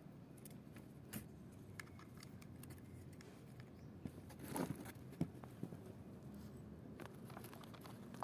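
Faint handling noise: scattered small clicks and taps over a low background hum, with a brief louder rustle about halfway through and a sharp click at the end.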